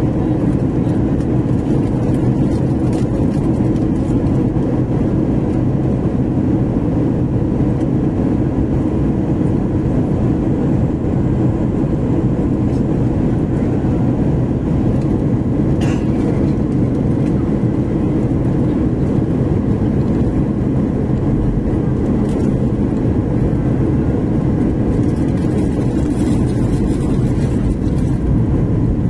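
Cabin noise of a jet airliner descending towards landing: the engines and rushing air make a steady, even low-pitched noise.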